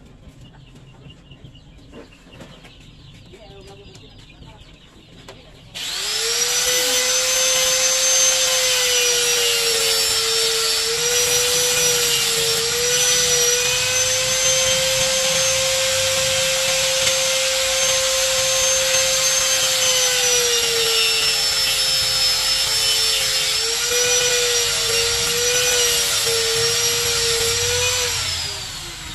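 Handheld electric angle grinder switched on about six seconds in and running with a loud, steady whine, its pitch sagging slightly at times as the disc is worked against wood. It is switched off near the end, the whine falling as the disc spins down.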